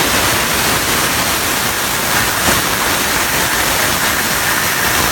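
CNC plasma cutter's torch cutting: a loud, steady hiss, with a faint high whine joining about two seconds in.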